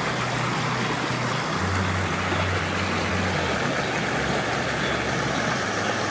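Rushing river water: a steady, even noise.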